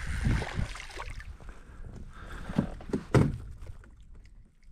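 Spinning reel being cranked for about a second as a crappie is reeled in. It is followed by two thumps about half a second apart as the fish is swung aboard and handled against the kayak.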